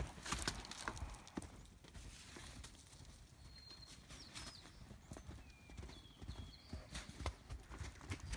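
Hoofbeats of a horse moving around a dirt pen: an uneven run of soft thuds, heavier near the start and again near the end.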